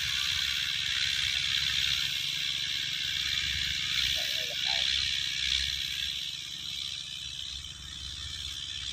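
Massey Ferguson 185 diesel tractor with a rotary tiller running at a distance: a steady low rumble under an even hiss.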